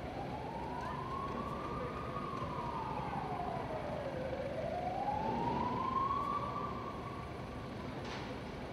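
An emergency vehicle siren wailing in slow sweeps: it rises, falls over about two seconds, rises again, then fades, over steady background noise.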